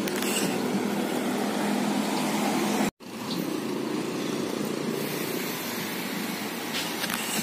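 Street ambience: a steady hum of road traffic with noisy wind on a phone microphone. The sound cuts out for an instant about three seconds in, then carries on.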